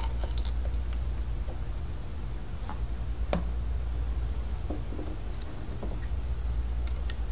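Scattered light clicks and taps of hard plastic toy pieces as a small plastic tray is fitted into a plastic doll's hand, the firmest click about three and a half seconds in, over a steady low hum.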